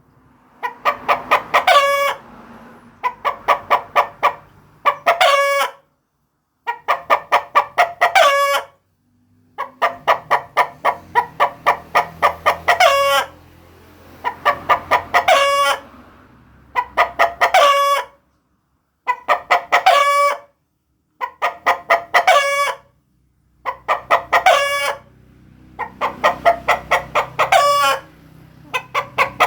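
Chicken cackling over and over as a lure call: each run is a quick series of clucks ending in a short drawn-out call, about a dozen runs, some of them cut off by sudden silences.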